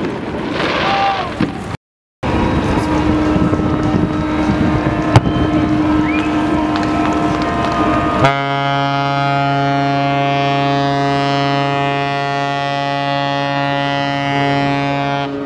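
Fireworks crackling briefly, then after a cut, wind and crowd noise. About eight seconds in, a ship's horn sounds one long, steady, deep blast of about seven seconds.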